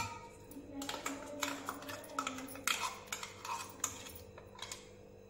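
A steel spoon scraping and tapping against a steel mixer-grinder jar and bowl while thick ground spinach paste is scooped out: an irregular string of light clinks and scrapes that thins out near the end.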